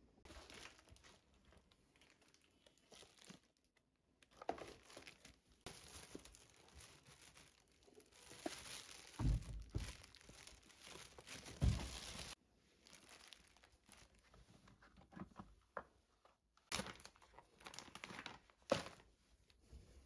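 Thin plastic carrier bag crinkling and rustling as it is handled, with two dull thumps in the middle. Shorter rustles and light knocks follow near the end.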